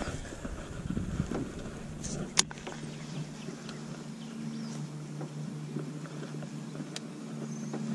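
Electric trolling motor running with a steady low hum that sets in about a second and a half in, with one sharp click a second later.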